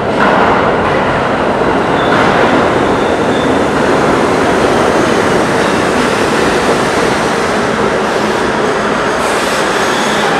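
R32 subway train pulling into an underground station, its wheels running on the rails with a steady loud rumble. A faint high wheel squeal comes in about two seconds in.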